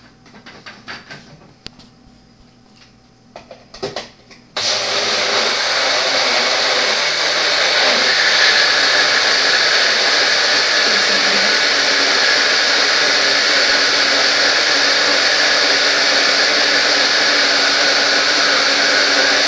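Clicks and knocks as the cup is fitted onto a single-serve bullet-style blender. About four and a half seconds in, the motor starts suddenly and runs steadily and loudly, blending a banana, milk and protein shake.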